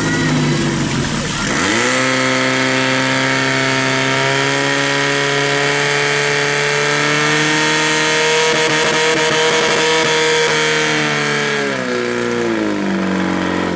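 Portable fire pump engine revving up to full throttle about a second and a half in, then holding a steady high pitch while it drives water through the hoses, dropping in pitch near the end.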